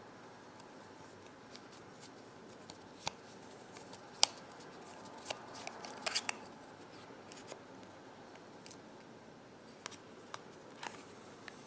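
Scattered faint clicks and ticks of a precision Phillips screwdriver backing two tiny screws out of the base of a Microsoft Zune 30GB media player. The sharpest click comes about four seconds in, with a quick run of clicks around six seconds.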